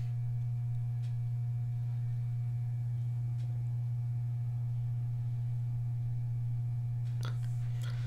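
Steady low hum on the recording: a single unchanging deep tone, with nothing else heard.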